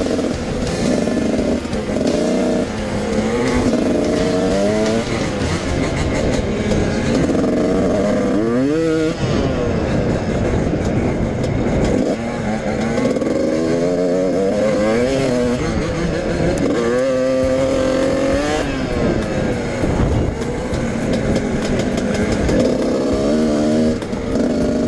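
Dirt bike engine being ridden, revving up and down, its pitch climbing through the gears and dropping again several times.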